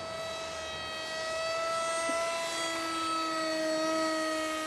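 Electric motor and propeller of a foam RC model jet, a 2212 brushless outrunner, whining steadily in flight; the whine grows a little louder toward the middle and eases near the end, with a second, lower tone joining about halfway through.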